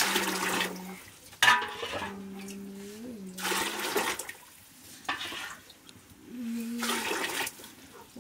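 Water ladled from a large copper pot and poured into metal vessels: about five short splashing pours, roughly one every second and a half. Between the pours a low steady tone comes and goes.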